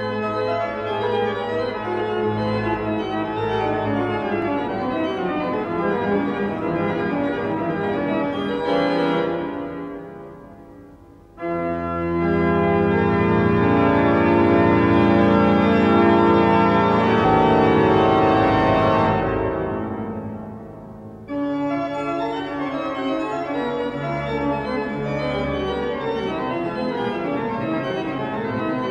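Organ music in sustained chords, in three passages: the first fades out about ten seconds in, a louder, fuller passage follows and fades about twenty seconds in, and a third begins soon after.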